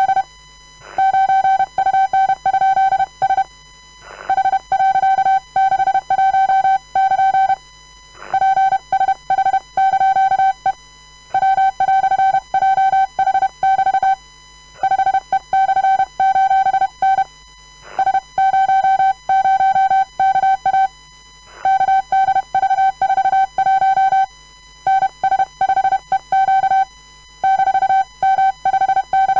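Hand-sent Morse code: a single mid-pitched beep keyed on and off in dots and dashes, sending groups of random letters, numbers and punctuation at a comfortable speed, with a pause of about a second between groups.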